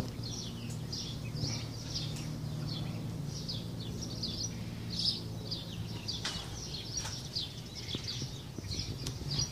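Small birds chirping over and over in short, high, slightly falling notes, above a steady low hum, with a couple of sharp clicks partway through.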